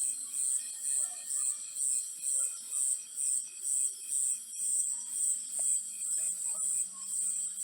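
An insect, cricket-like, chirping in high, even pulses about twice a second, with faint scattered calls beneath.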